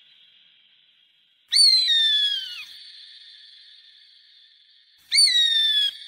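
A bird of prey calling twice, a few seconds apart. Each call is a loud, clear whistle that jumps up sharply and then slides down in pitch; the first lasts about a second and the second is a little shorter.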